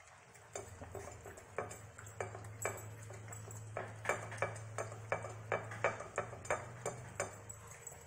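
A small dog licking and nosing the last scraps of rice off a ceramic plate on a tile floor: a string of sharp clinks and clicks as its muzzle and tongue knock the plate, about two or three a second, thickest in the middle.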